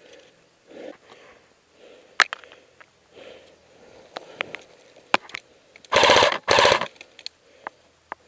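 An airsoft electric rifle firing two short full-auto bursts about six seconds in, a rapid rattle of shots, preceded by a few sharp single clicks and knocks.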